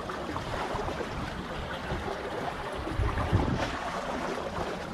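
Wind rumbling on the microphone over the wash of harbour water, with a few faint ticks.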